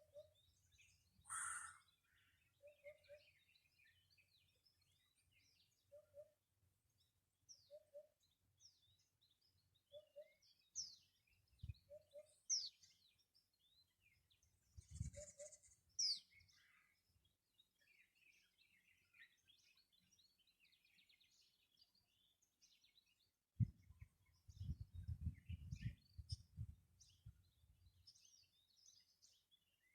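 Several birds chirping and calling in a faint dawn chorus, with short high chirps and quick whistled notes. A soft, low double note repeats every second or two through the first half. A few low thumps and rumbles come near the middle and toward the end.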